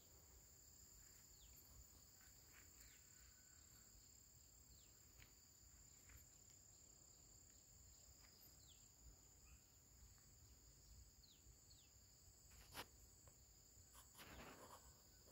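Faint field ambience: a steady, high-pitched insect chorus, with a few short falling chirps and one sharp click near the end.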